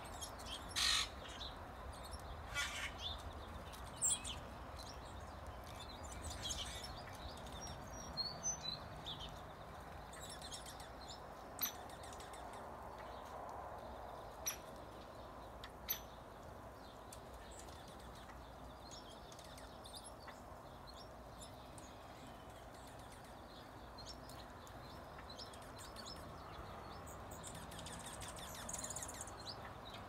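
Small songbirds chirping now and then in short, high calls, thicker in the first half, over a faint steady background noise.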